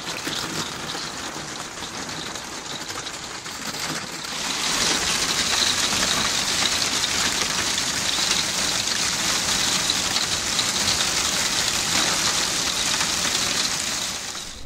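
Hail mixed with rain drumming on a camper van's roof and skylight, heard from inside the van. It gets heavier about four seconds in and keeps up a dense, steady patter.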